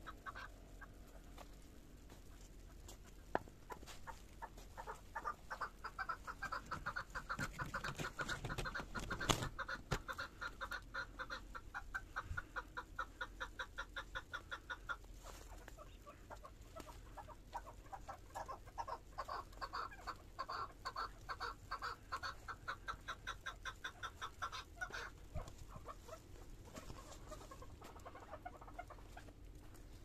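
Footsteps crunching through snow at a steady walking pace, about two or three steps a second, with a brief pause about halfway through and a couple of sharper snaps.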